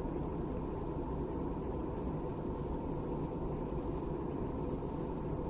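Steady low rumble of a jet airliner, even throughout with no rise or fall.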